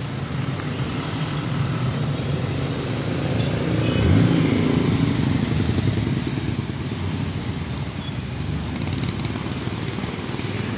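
Road traffic moving slowly over a rain-wet crossing: car and motorcycle engines running and tyres on wet asphalt. A vehicle passes close about four seconds in, the loudest moment.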